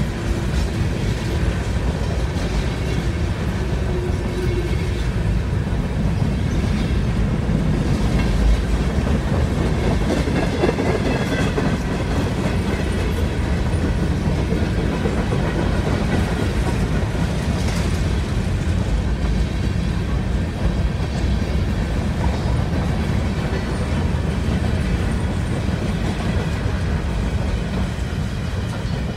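Freight train cars rolling past at speed: a steady rumble of covered hoppers and tank cars, with wheels clattering over the rail joints.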